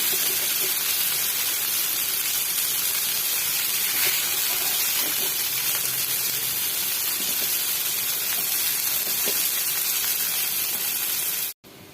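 Rava-coated surmai (kingfish) slices sizzling steadily in hot oil in a pan. The sizzle cuts off suddenly near the end.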